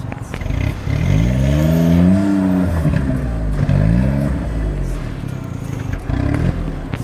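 Small kei-class off-road vehicle's engine revving twice under load, pitch climbing then dropping each time, the first rev longer and louder than the second.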